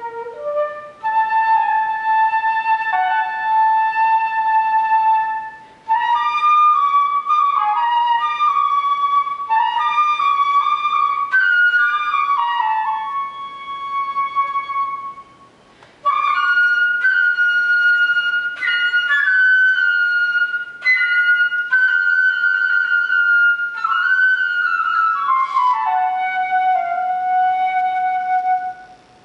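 Solo flute playing unaccompanied: long held notes and quick runs in phrases broken by short breath pauses, the last phrase sliding down in a quick run onto a long held note.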